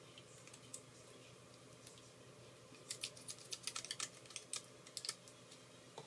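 A quick run of light, sharp clicks and taps, starting about three seconds in and lasting roughly two seconds, from small tools and phone parts being handled during an iPhone 4 repair.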